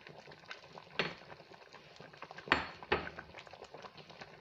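A ladle knocking against the metal pot as the pepper soup is turned, three sharp clinks: one about a second in, then two close together in the middle.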